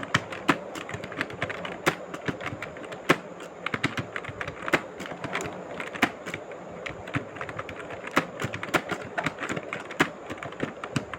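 Typing on a keyboard during a timed typing test: quick, irregular keystrokes, several a second.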